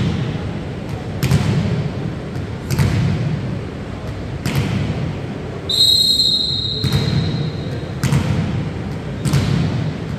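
Slow, steady beat of heavy thumps, about one every one and a half seconds. A volleyball referee's whistle blows once for about a second just past the middle.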